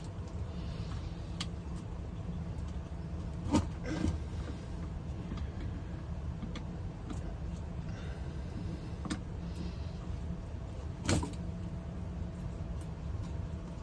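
Steady low motor-like hum with scattered light clicks and two sharper knocks, about three and a half and eleven seconds in.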